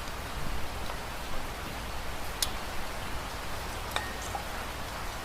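Steady hiss of heavy rain, with two light clicks about two and a half and four seconds in.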